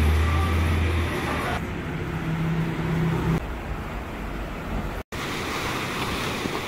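Street traffic noise with a low vehicle-engine hum. After a cut about five seconds in, small waves wash onto a sandy beach.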